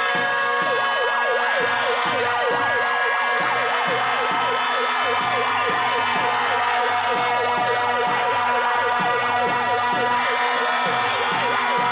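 Several handheld megaphone sirens sounding at once, fast yelping sweeps mixed with slow rising and falling wails, over steady blasts of plastic horns: a protest crowd making noise.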